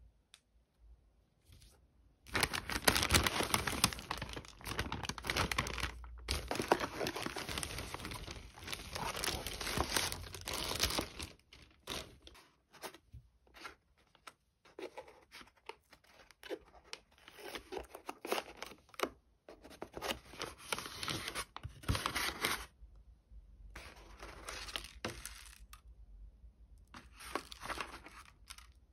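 Paper and plastic takeaway bags rustling and crinkling as food is unpacked, in repeated bursts of a few seconds each, starting about two seconds in, with the occasional light knock on the table.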